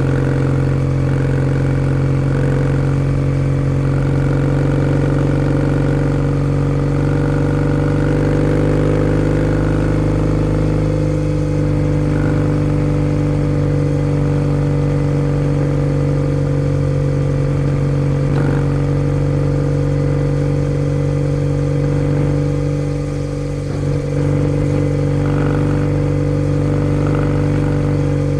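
Kawasaki W650's air-cooled parallel-twin engine running through a POSH W1 aftermarket full exhaust, at steady speed. The exhaust note holds a nearly constant pitch, with a brief dip in level a little over three-quarters of the way through.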